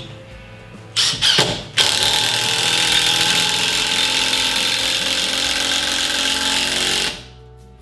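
Makita 18V brushless cordless impact driver driving a 4.5-inch screw into a wooden block. It gives a couple of short bursts about a second in, then hammers steadily for about five seconds and stops.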